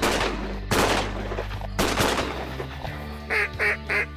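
Shotguns fire three blasts in under two seconds, each echoing briefly. Near the end comes a short series of four duck quacks.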